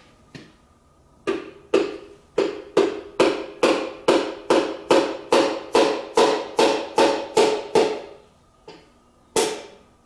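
A piston being tapped down through a piston ring compressor into the cylinder bore of a 1951 MG TD engine block. It is a steady run of about two or three ringing taps a second, then a pause and two more taps near the end.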